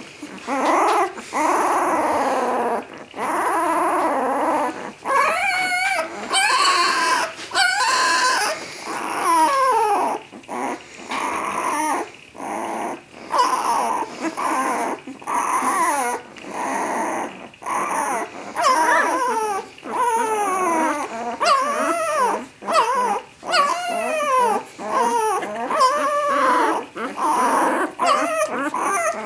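Litter of ten-day-old puppies whining and squealing almost without pause, short wavering cries rising and falling and overlapping one another.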